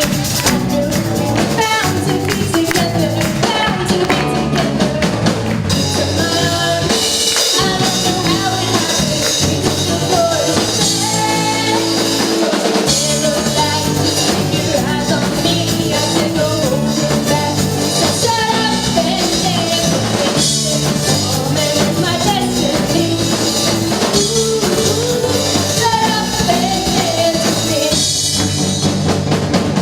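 Live rock band playing a song, with a singer over drum kit and amplified instruments.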